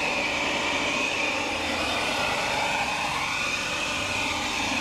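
56-volt cordless battery leaf blower running steadily, its switch taped in the on position to blow-dry wet window paint: an even rush of air with a steady high motor whine.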